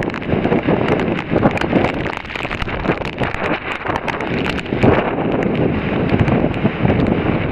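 Strong typhoon wind gusting and buffeting the microphone, surging and easing, with many short clicks and knocks scattered through it.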